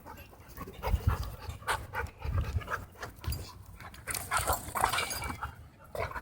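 Dogs panting in irregular bursts during rough play, with a few low thumps.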